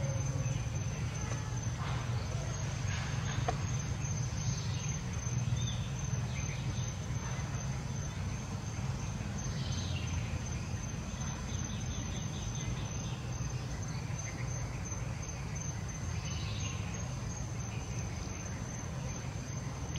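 Outdoor forest ambience: a steady low rumble under a thin, unbroken high insect drone, with a few faint short high calls now and then.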